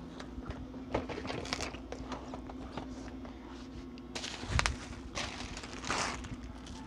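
Packages being handled on a counter: boxes set aside and a bubble-wrapped parcel rustling and sliding under the hands, with small knocks and a low thump about four and a half seconds in.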